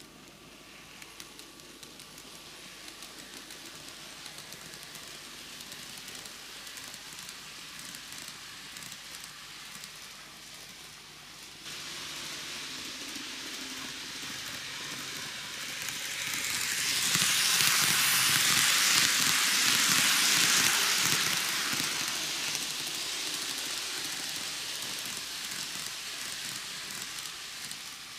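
TOMIX N gauge 733-3000 series model train running on plastic track: a rushing hiss of wheels and motor that builds, is loudest about two-thirds of the way through, then fades.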